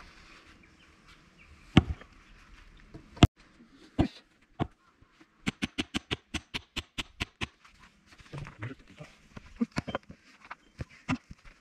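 Hammer tapping a steel splitting wedge set on a log round to start it into the wood: a few single sharp knocks, then about five seconds in a quick even run of light taps, roughly seven a second for two seconds, then a few more knocks.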